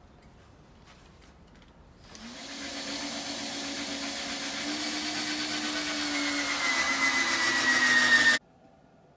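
An electric power tool runs for about six seconds, starting about two seconds in and growing gradually louder. Its whine drops slightly in pitch near the end, as if under load, and the sound then cuts off abruptly.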